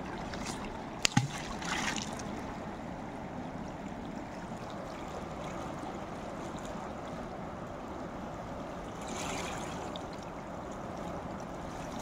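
Steady rush of flowing stream water, with two sharp knocks in quick succession about a second in.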